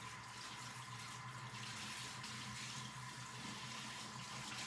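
Water spraying steadily from a handheld shower sprayer onto a dog's wet coat in a portable dog bathtub, a constant hiss of spray.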